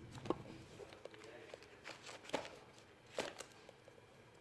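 Faint handling noises while signing paperwork: a few soft clicks and rustles, the sharpest near the start, around two seconds in and a little after three seconds.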